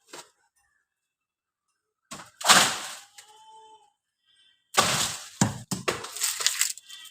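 Loud cracking and crashing noises: one burst about two seconds in, then a denser run of crashes from about five seconds on.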